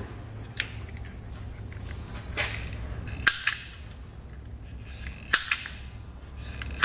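Self-adjusting wire stripper stripping insulation off the ends of 4-pole trailer harness wires: several sharp snaps, some in quick pairs, every second or two as the jaws clamp and spring open. A low steady hum runs underneath.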